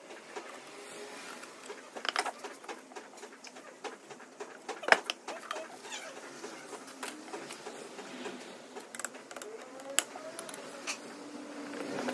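Clicks, taps and light scrapes of alternator parts and hand tools being handled and fitted together during reassembly, with a sharp knock about five seconds in.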